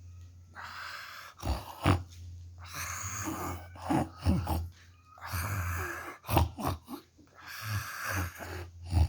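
A sleeper snoring: an irregular run of snorts and wheezy breaths.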